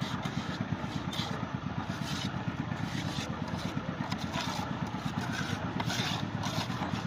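An engine idling steadily with a rapid low throb, while a scoop and hand scrape through damp gravel-concrete mix in a pit a few times.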